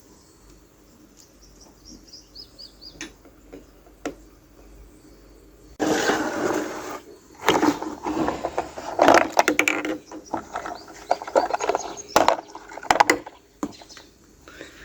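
Plastic toy parts and packaging being handled: faint small ticks at first, then from about six seconds in loud rustling of wrapping and a run of sharp plastic clicks and knocks as the pieces are fitted together.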